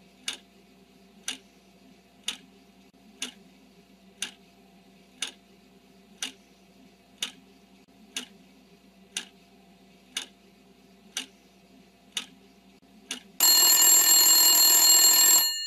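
Quiz countdown timer sound effect: a clock ticking once a second, then, about 13 seconds in, a loud steady alarm buzzer for about two seconds to signal that time is up.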